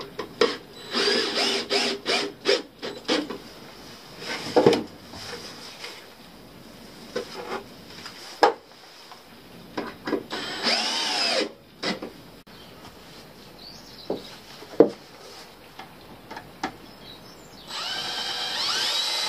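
Cordless drill boring bolt holes through plywood, driven in bursts. There is a run of short trigger pulls about a second in and a longer burst around ten seconds whose motor pitch rises and falls. Another burst comes near the end, and single knocks and handling clatter fall in between.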